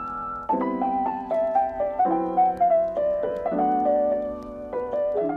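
Background piano music: a gentle melody over held chords, beginning to fade near the end.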